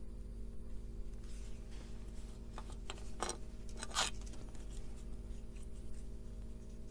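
A few short scrapes and clicks of small parts being handled during circuit-board assembly, the loudest about four seconds in, over a steady low electrical hum.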